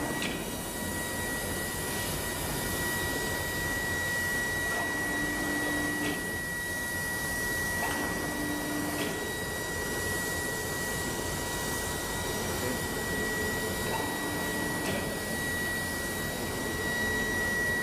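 Steady rushing machinery noise of a working iron foundry with a constant high-pitched whine, broken by a few short low hums and faint clicks.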